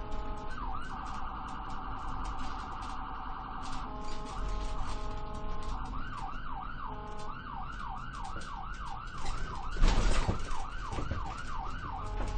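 Ambulance siren running through its patterns: a fast warble about a second in, steady horn-like tones, then a rapid yelp sweeping up and down about three times a second. A loud bang just before ten seconds in cuts through the siren.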